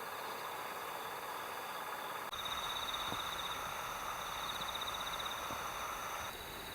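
Insects trilling steadily in high, pulsing notes. A second, louder layer of trilling and hiss comes in abruptly about two seconds in and drops away again near the end.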